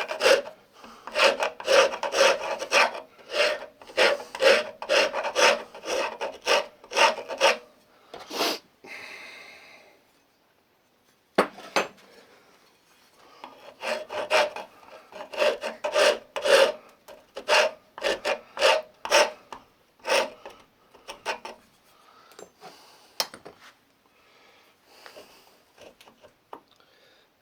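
Rusty rasp file scraping a wooden axe handle in quick repeated strokes, taking wood off to shape it. The strokes stop for a few seconds about a third of the way in, with a single sharp click, then resume and grow fainter and sparser near the end.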